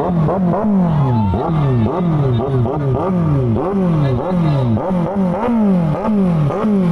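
Superbike engines revved in rapid, repeated throttle blips, about two a second. Each rev climbs sharply and falls away, and the revs overlap one another.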